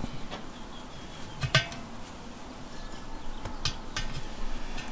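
A few sharp metallic clicks and clinks from a spoke wrench working the spoke nipples of a wire-spoked motorcycle wheel as the spokes are tightened, the loudest about a second and a half in.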